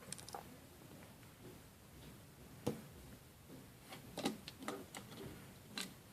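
Lego pieces being handled and pegged together: a few faint, separate plastic clicks and taps, loudest one near the middle and another near the end.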